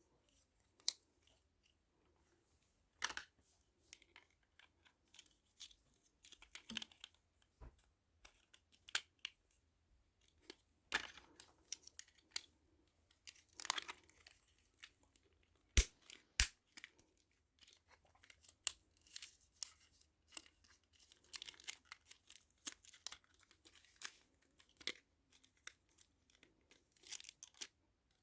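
Paper and plastic handled by hand: intermittent tearing, rustling and crinkling with small clicks, the sharpest click about 16 seconds in.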